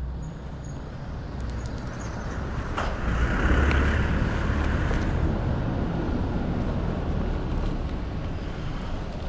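Street traffic noise with a low rumble, swelling as a car passes about three seconds in; a single sharp click just before the swell.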